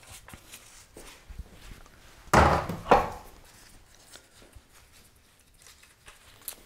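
Work on an engine cylinder head: light clicks as small nuts are handled, and two loud, sharp knocks a little over two seconds in, the second about half a second after the first.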